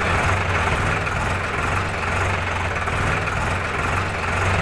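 Diesel engine of a 39 HP Sonalika tractor pulling a loaded trolley, running steadily at low road speed, heard from the driver's seat.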